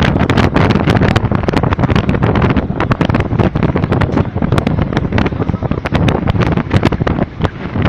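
Strong sandstorm wind buffeting the microphone: a loud, dense rush heaviest in the low end, broken throughout by many sharp crackles.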